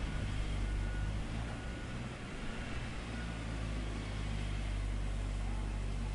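Steady low drone of running heavy machinery, most likely a diesel engine, with a constant low hum and a broad rushing noise above it.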